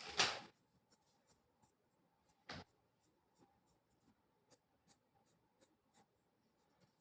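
Drawing strokes on paper: a long scratchy stroke at the start and another about two and a half seconds in, then a run of short, light strokes.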